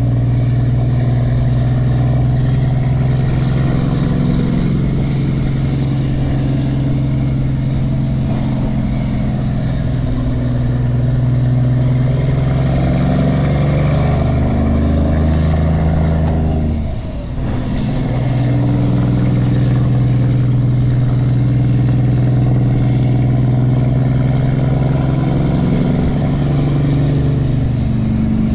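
Semi truck's diesel engine running steadily on the road. Its sound briefly drops away about two-thirds of the way through, then picks up again.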